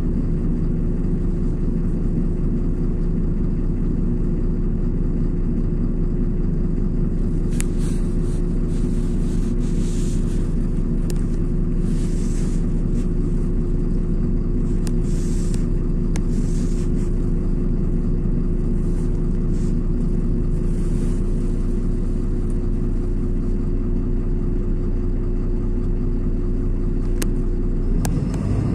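LiAZ 6213.22 articulated city bus's diesel engine running at a steady, unchanging pitch, heard from inside the cabin, with several short hisses in the middle and a few sharp clicks. Right at the end the engine note starts to rise.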